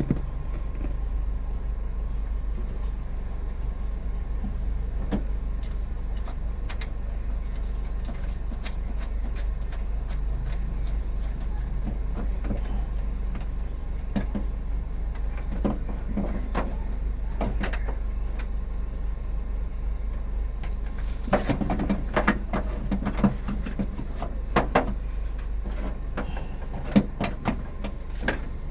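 Handwork on a car's driver door during a power-window repair: scattered clicks and knocks, with a dense run of them about three-quarters of the way through, over a steady low hum.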